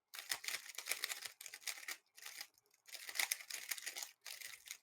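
3x3 speed cube being turned rapidly, its plastic layers clicking and rattling in quick runs, with a short pause a little after two seconds.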